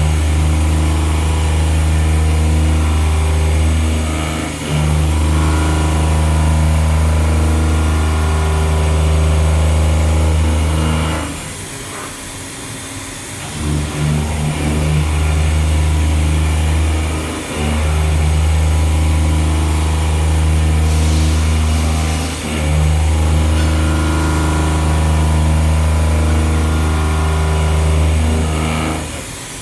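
CNC milling machine cutting a pocket: a steady low machine hum that dips briefly every five or six seconds and drops off for about two seconds partway through.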